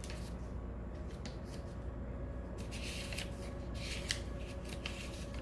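Tarot cards being handled and shuffled: a run of short, papery flicks and rustles, a few at first and then many in quick succession over the second half.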